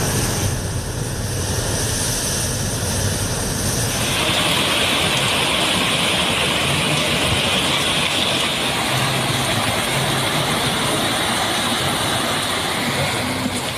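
Surf breaking on shore rocks for about four seconds, then an abrupt cut to heavy rain pouring steadily, a dense hiss, with a low rumble underneath throughout.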